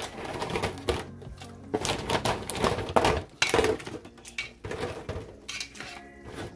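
Cooked crab claws dropped one after another into a large pot of seafood-boil broth, a string of irregular knocks and clinks as the shells hit the pot and each other, over soft background music.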